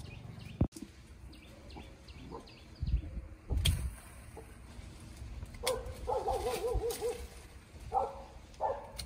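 A dog whining in wavering, pitched calls from a little past halfway, with two shorter whines near the end. Earlier there is a sharp click and a couple of dull thumps.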